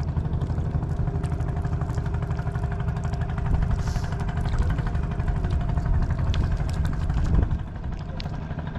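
A motor running steadily with a low drone, with scattered light clicks over it. A louder thump comes about seven seconds in, after which the drone is a little quieter.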